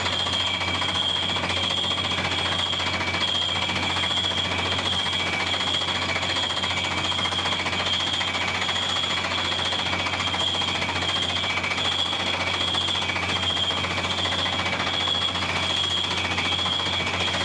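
Water well drilling rig drilling on compressed air from a portable air compressor: a steady, loud, dense mechanical clatter with a faint, even pulse.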